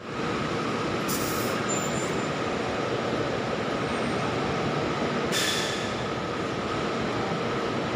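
Steady din of city buses running in a covered bus terminal, echoing under the roof, with two short hisses of air, about a second in and again about five seconds in.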